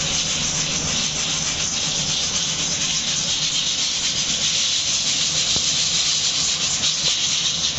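Roasted chickpeas shaken in a perforated steel colander, with hot sand and coarse salt sifting through the holes onto a steel plate beneath: a steady rustling hiss.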